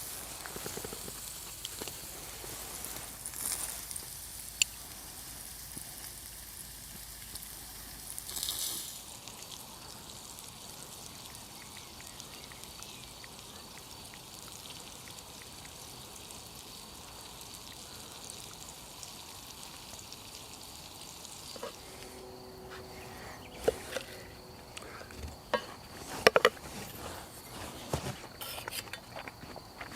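Meat frying over a campfire: a steady sizzling hiss with occasional sharp crackles. Near the end come a few louder knocks and clicks.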